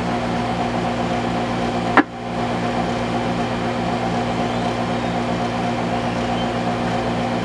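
Steady hum and buzz from a ham radio transceiver's speaker in a gap between transmissions on a 2-metre repeater, with one sharp click about two seconds in and a brief dip in level just after it.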